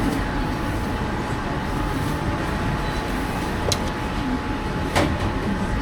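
Steady street noise with a low traffic rumble, and two sharp clicks, about three and a half and five seconds in.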